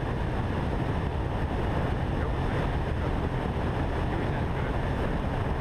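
Steady low rush of wind and engine drone from a Diamond DA40 light propeller aircraft in flight, muffled as picked up by a camera mounted on the wing.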